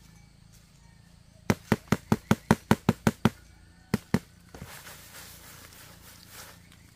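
A quick run of about nine sharp knocks, about five a second, then two more a moment later, followed by light rustling.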